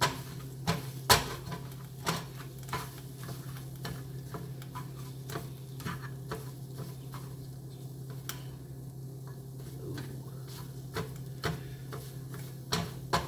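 Utensil stirring and scraping eggs in a frying pan, with irregular sharp clicks and taps of metal on the pan over a faint sizzle. A steady low hum runs underneath.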